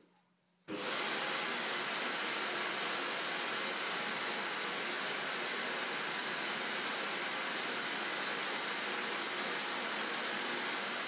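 Dreame Z10 Station's self-emptying dock running its automatic emptying cycle, sucking the dust out of the stick vacuum's bin. It is fairly loud and steady, switches on abruptly about a second in, and has a faint high whine over it.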